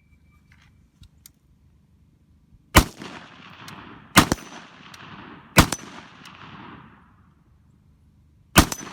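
Four rifle shots: three about a second and a half apart, then a fourth about three seconds later, each followed by a rolling echo.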